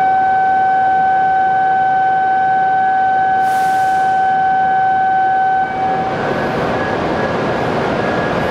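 Departure warning tone for a Hokuriku Shinkansen train: one steady, unchanging electronic tone that cuts off after about five and a half seconds. A short hiss sounds about halfway through, over the steady hum of the standing train.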